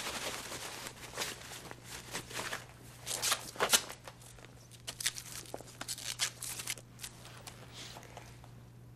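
Irregular rustling and swishing of plastic biohazard suits over a steady low hum, the loudest swishes coming a little over three seconds in.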